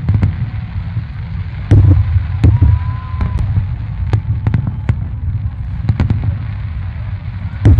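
Fireworks display: aerial shells bursting in quick succession, sharp bangs over a continuous low rumble of booms, the loudest bang a little under two seconds in. A brief faint whistle sounds about three seconds in.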